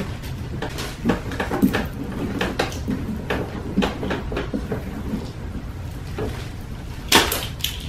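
Hands scooping pulp and seeds out of hollowed pumpkins: irregular wet scraping and soft knocks against the thick rinds, with a louder burst about seven seconds in.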